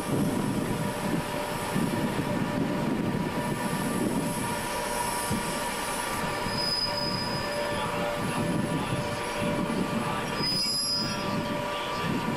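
Class 87 electric locomotive rumbling slowly along the platform to a stand, with a steady electrical whine from the locomotive and two brief high brake squeals, about halfway through and near the end.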